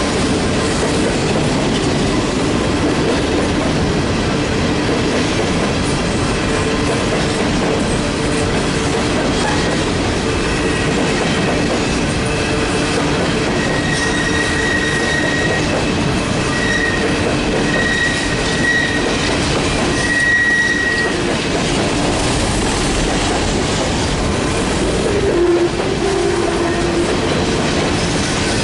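Empty Norfolk Southern coal cars rolling past close by: a steady, loud rumble and clatter of steel wheels on the rails. A thin, high wheel squeal comes and goes through the middle, and a brief lower squeal sounds near the end.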